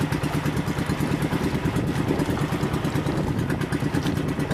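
Boat engine running steadily with a fast, even chug, heard from on board the pumpboat.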